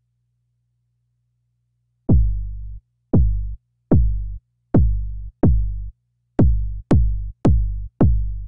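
A synthesized kick drum from Logic Pro's ES2 synth played eight times, each hit a quick downward pitch sweep into a short low thump, about a second apart at first and then faster. The last few hits start with a sharp click.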